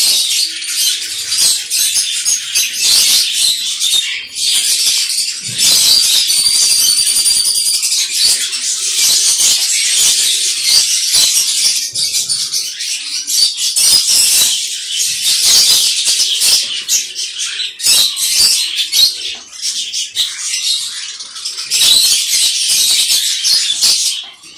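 An aviary of small parrots, budgerigars among them, chattering and chirping together in a dense, unbroken din, with a few clearer whistled notes about six seconds in.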